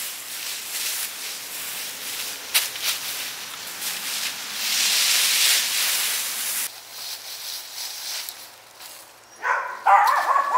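Rakes scraping and rustling through dry fallen leaves on a lawn, a steady noise with short scratchy strokes. It drops away about two-thirds of the way in, and a few high-pitched cries come near the end.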